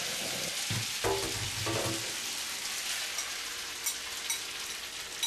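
Freshly drained pasta sizzling in a frying pan on very high heat as it is stirred, with a dense, steady hiss. There are a few knocks in the first couple of seconds and a few light clicks near the end.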